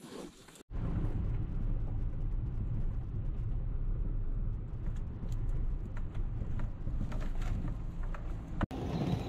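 Steady low rumble of a small hatchback car heard from inside the cabin as it drives along a dirt road, with a few faint clicks. It starts abruptly after a short quiet outdoor moment.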